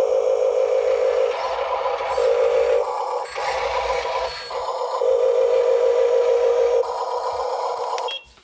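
Small electric motor and gearbox of an RC dump truck's tipper whining steadily in stretches as the bed is worked, the tone stronger and weaker by turns and stopping and starting several times. It cuts off suddenly near the end.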